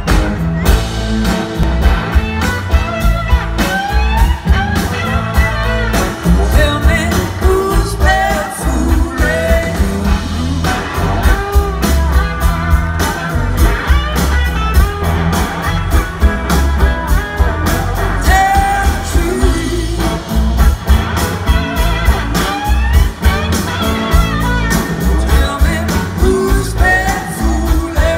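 Live blues-rock band playing loud through a PA: electric guitars, bass and drums keeping a steady beat, with a voice singing over them.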